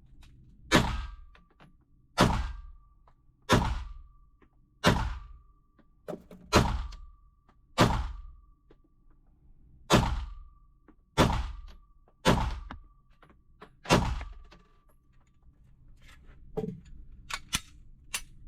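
Ten single gunshots fired one at a time at an unhurried pace, about one every second and a half, with a longer pause after the sixth. Most are followed by a short ringing tone. A few fainter clicks come near the end.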